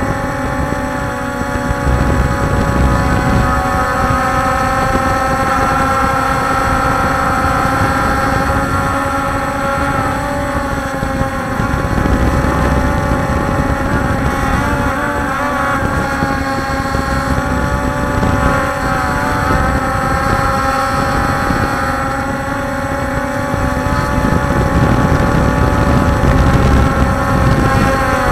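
Quadcopter drones hovering, a Walkera Scout X4 and a DJI Phantom 3 Pro: a steady whine of motors and propellers with several held pitches. Around the middle the pitches waver and beat against each other.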